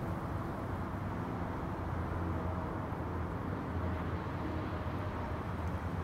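Steady low rumble of distant highway traffic mixed with wind, an even wash with no single vehicle standing out.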